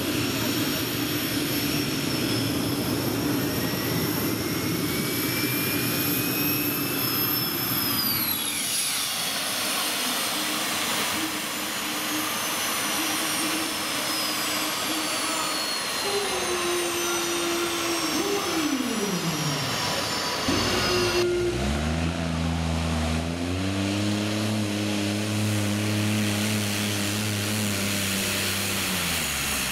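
Modified tractor-pulling tractor engines running hard, with a high whine that winds down about eight seconds in. Later an engine's pitch dips and climbs back, then holds steady at high revs before cutting off at the end.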